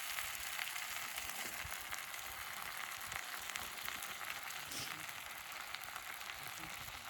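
Udon frying in a pan over a wood fire: a steady sizzle with many small crackles.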